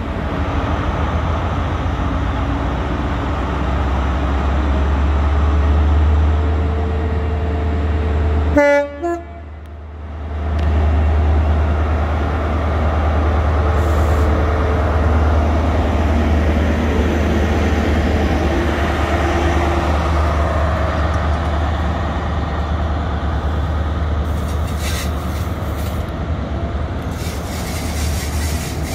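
ScotRail Class 43 HST power car's diesel engine running with a steady deep drone as the train moves past close by, followed by its coaches rolling past. About nine seconds in there is a sharp click, and the sound briefly drops away for about two seconds.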